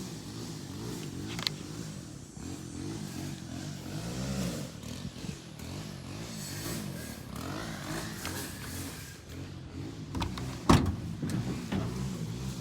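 An engine running steadily with a low, wavering hum, broken by a few sharp knocks, the loudest about ten and a half seconds in.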